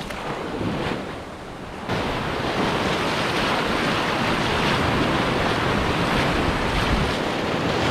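Breaking surf washing up the sand around the feet, a foamy wave rushing in suddenly about two seconds in and staying loud.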